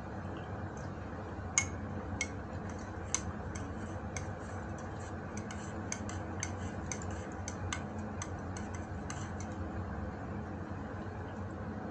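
Irregular light clicks and ticks while drinking from a coffee mug, with two sharper clicks about one and a half and three seconds in, over a steady low hum.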